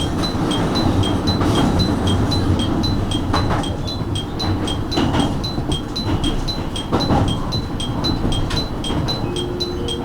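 JR Kyushu 815-series electric train running, a low rumble with a few rail-joint clanks, under a steady repeating high two-note electronic chime.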